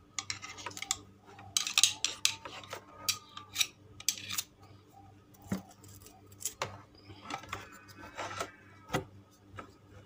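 Irregular clicks, knocks and short scrapes of a washing-machine spin-dryer motor's metal frame being handled and set against its trimmed plastic mount, over a faint steady low hum.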